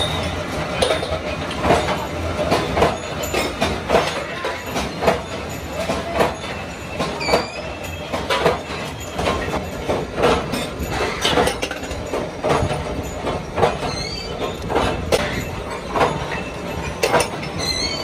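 Thread-rolling machine running on steel bar, with its two grooved dies turning: an uneven run of sharp metallic clanks, roughly two a second, over the machine's running noise. A few brief high metal squeals come through, one about halfway through and more near the end.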